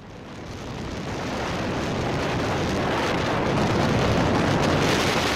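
Strong wind buffeting the microphone, a dense rushing noise that builds over the first two seconds and then stays loud.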